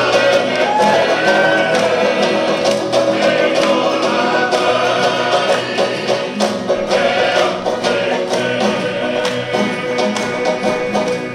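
Tongan string band playing a tau'olunga song: strummed acoustic guitars and banjos with group singing.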